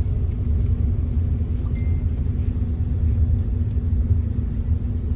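Steady low rumble of a moving vehicle, with a faint steady hum over it.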